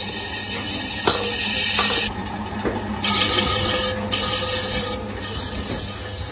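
A hand-held cutting tool scraping grooves into a metal pan spinning on a lathe, over the steady hum of the lathe. The scrape breaks off about two seconds in, comes back a second later and drops out briefly twice more as the tool is lifted and set back on.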